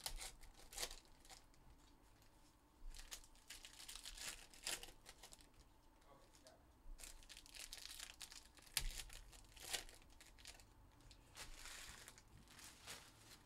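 Foil trading-card pack wrappers being torn open and crinkled, in faint, irregular bursts of rustling with a few sharp crackles.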